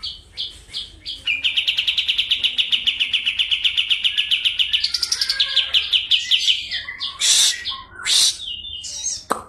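Kapas tembak bulbul singing: a few spaced notes, then a long rapid rolling trill of quick repeated notes lasting about five seconds, followed by two louder, harsher notes. A sharp click sounds just before the end.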